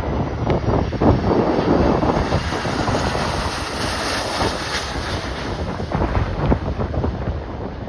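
Gale-force wind buffeting the microphone in heavy gusts, with a jet airliner's engine hiss swelling and fading in the middle.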